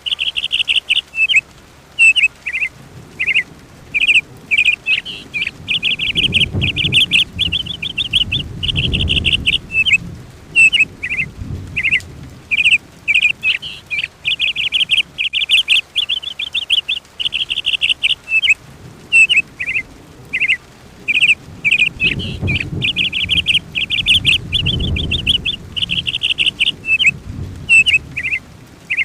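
A songbird singing loud, rapid trilled phrases over and over with short gaps. A low rumble swells up twice, about a quarter of the way in and again near the end.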